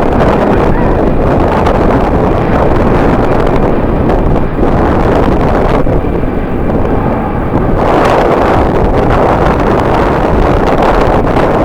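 Strong wind buffeting the camera microphone in a loud, continuous rumble, easing briefly a little past the middle and gusting up again soon after.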